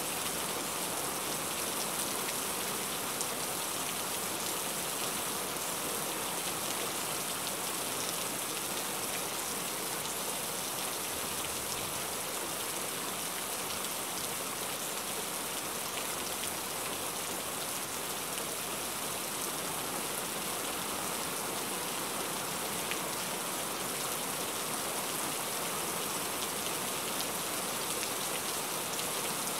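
Steady rain falling on a car's roof and windshield, heard from inside the car.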